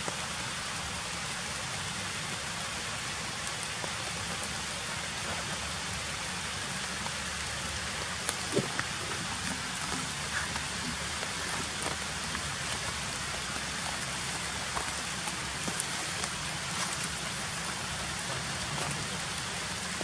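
Steady, even hiss like rain, with a few faint clicks about eight to ten seconds in.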